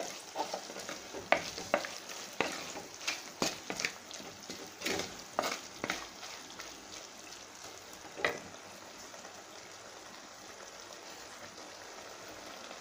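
Wooden spatula stirring and scraping a thick, oily vegetable pickle mixture in a clay pot, over a soft steady sizzle. The stirring strokes stop about two-thirds of the way through, leaving only the faint sizzle.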